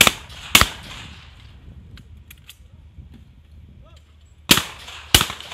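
Shotguns firing at clay targets in trench trap: two pairs of shots, each pair a shot and a second shot about half a second later, the first pair at the start and the second about four and a half seconds in. Each shot has a short echoing tail.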